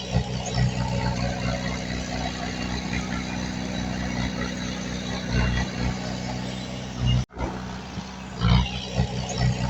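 Diesel engine of heavy earthmoving machinery running steadily under load, with a few louder surges. The sound cuts out for an instant about seven seconds in.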